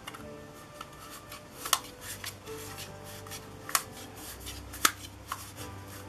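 Hard plastic 72 mm petal lens hoods being handled, rubbing and clicking against each other, with three sharp clacks standing out, the loudest near the middle.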